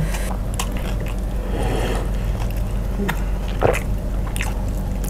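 Close-miked eating sounds: wet chewing, mouth clicks and smacks, and gloved fingers working fried chicken and rice on a plate, over a steady low hum.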